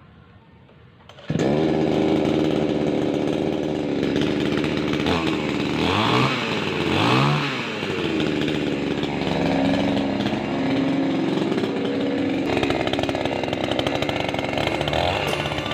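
Two-stroke chainsaw engine catching about a second in, then running at idle, with two quick blips of the throttle in the middle where the pitch rises and falls.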